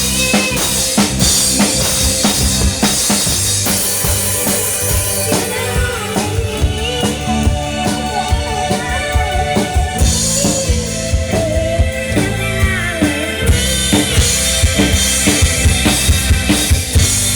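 A live rock band playing, the drum kit to the fore with kick and snare hits over bass, electric guitar and keyboard, and a rapid run of drum hits near the end.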